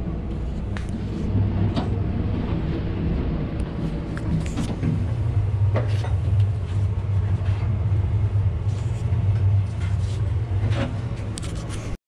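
Steady low machinery drone, with a few light clicks and knocks scattered through it.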